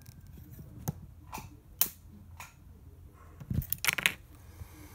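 A few sharp snaps and clicks from a handheld spot welder as its probes are pressed onto tin and fired from the foot pedal; the loudest comes about two seconds in, then a quick run of them near four seconds. The welds are not taking, which the user suspects is because the capacitors are not yet fully charged.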